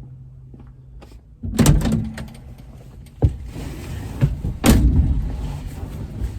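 Small-block Chevy 350 V8 idling with a steady low hum, with several loud clunks and knocks over it, about one and a half, three and four and a half seconds in.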